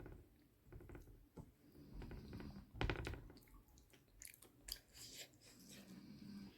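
Close-miked chewing of a mouthful of rice and curry, with wet mouth clicks and smacks; a louder smack or bite about three seconds in.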